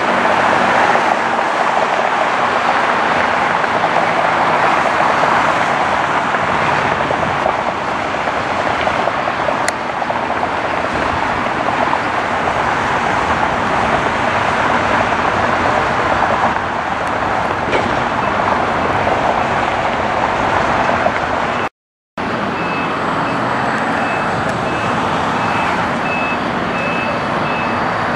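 Steady loud engine roar. About 22 seconds in, a cut silences it for a moment; it resumes with a string of short, evenly spaced high beeps over it.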